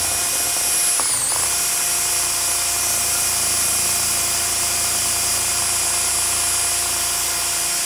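Cordless drill with an off-centre weight on its chuck running steadily at speed, held against a metal pan of wet sand so that it shakes the pan. Its whine dips briefly in pitch about a second in, then holds steady.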